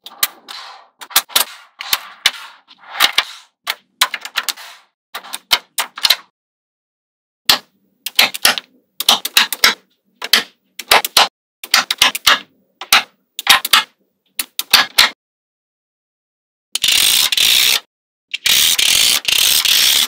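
Magnetic balls clicking and snapping together as strips and sheets of them are pressed into place, in quick clusters of sharp clicks. Near the end come two dense rattling bursts about a second long each.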